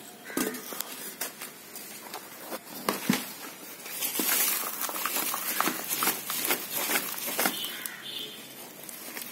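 Potting soil being added and worked in around the base of a potted palm: crumbly rustling with scattered small knocks and clicks, busiest from about four seconds in.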